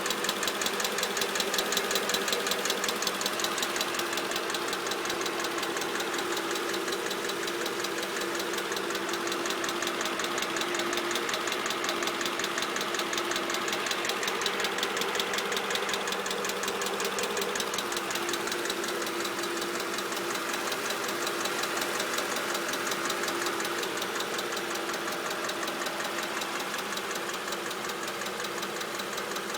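Mercedes-Benz CLK 500's V8 engine running steadily with a rapid, even clicking from the engine. The owner cannot explain the clicking.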